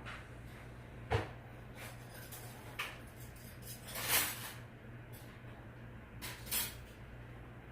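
First-generation Hampton Bay Southwind ceiling fan running on a floor test, its motor giving a steady low hum. Several irregular light clinks or knocks sound over it, about five in all, the longest a little after the middle.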